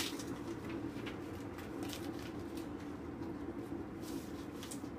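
Faint rustling and scraping of a paper envelope and card being handled as the card is drawn out, over a steady low hum.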